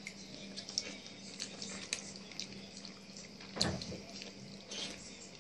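Wet chewing and lip-smacking of a person eating forkfuls of pasta in cream sauce: many small soft clicks, with one louder smack about three and a half seconds in.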